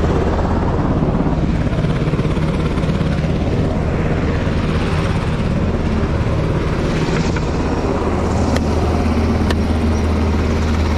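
Steady, loud drone of aircraft running on a carrier flight deck, with helicopter rotor and engine noise and a deep constant hum. Three sharp clicks sound in the second half.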